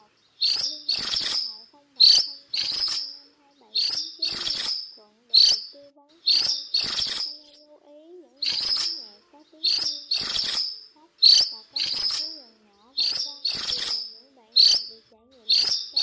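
Minivet giving its flock call: short, high, rattling calls repeated about every second, often in quick pairs, a dozen or so in all.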